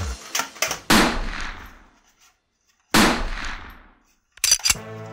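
Gunshot sounds: a couple of sharp cracks, then two loud shots about two seconds apart, each with a long fading echo. A short rapid burst of shots comes near the end and cuts off suddenly.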